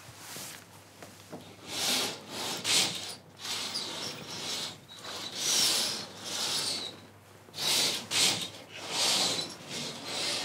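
Bed sheets and a duvet rustling as someone climbs into a bed and settles under the covers, in a string of soft swishes.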